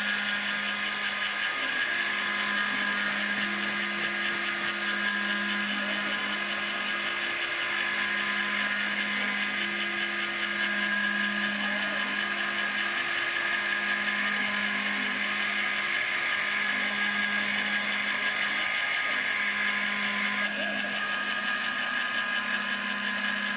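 Proxxon MF70 mini mill converted to CNC, isolation-milling a circuit board: a steady high spindle whine over a low motor hum that stops and restarts every second or two as the axes feed the cutter along the tracks.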